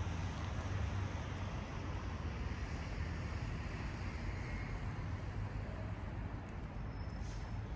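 City street traffic: a nearby motor vehicle's low engine rumble, easing off slightly, over a steady wash of road noise.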